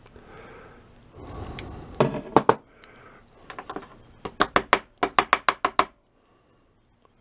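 Metal watch band and needle-nose pliers clicking and tapping against each other: a few sharp clicks about two seconds in, then a quick run of about ten clicks near the end, each with a slight metallic ring, as the band is worked to free a broken bit of metal stuck in a link.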